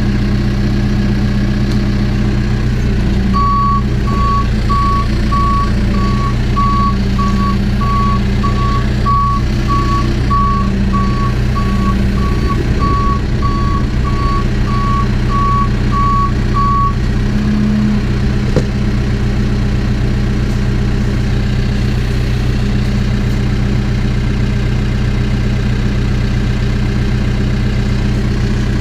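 Backhoe engine running steadily while its reversing alarm beeps about one and a half times a second for some thirteen seconds, starting a few seconds in: the machine is backing up. The beeping then stops and the engine runs on.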